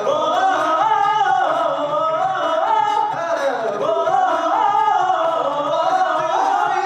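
A cappella vocal group singing in several-part harmony with no instruments: a lead voice slides through a long melodic phrase over held backing chords and a steady bass voice.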